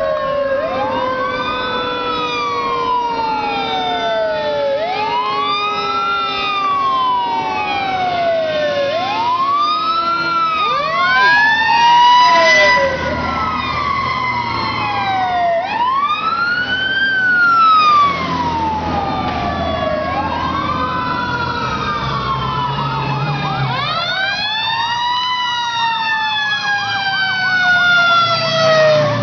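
Sirens of several responding fire trucks, electronic wails sweeping up and down about every two seconds and overlapping one another. A lower siren tone falls slowly in pitch through the first third. The sirens swell louder twice in the middle and again near the end as the trucks draw close.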